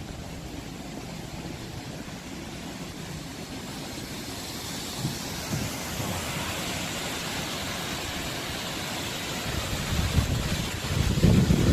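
Wind rumbling on the microphone over a steady rushing hiss, the rumble growing stronger near the end.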